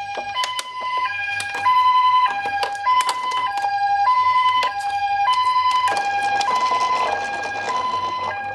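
Battery-powered electronic sirens of toy ambulance minicars sounding the Japanese two-tone hi-lo ambulance call, with a second siren overlapping out of step. Sharp plastic clicks and rattles from the toy cars run through it, and the sirens stop together at the end.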